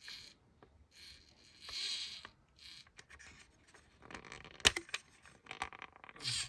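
Hands handling the plastic parts of a model road roller: short scratchy rubbing noises and small clicks, with one sharp click a little over four and a half seconds in.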